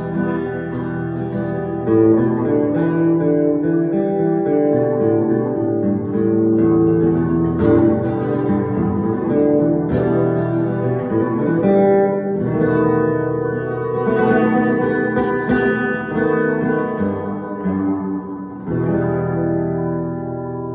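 Guitar music playing continuously, with strummed chords and picked notes.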